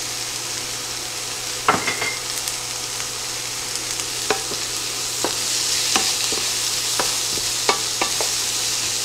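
Chopped yellow onion sizzling steadily in oil in a skillet over medium-high heat. A wooden spatula stirring it knocks against the pan several times, loudest about two seconds in.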